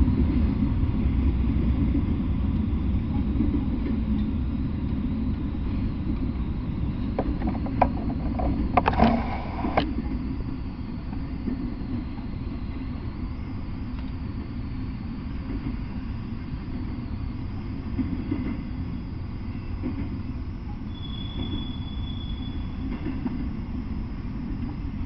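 Freight train of autorack cars rolling past, a steady low rumble of wheels on rail that slowly fades. A cluster of sharp knocks comes about eight to ten seconds in, and a brief high-pitched squeal near the end.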